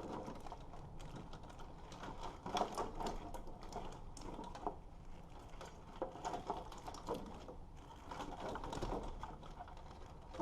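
Wiring harness connectors and relays being handled and fed through, with irregular light plastic clicks, taps and rustling of the wires.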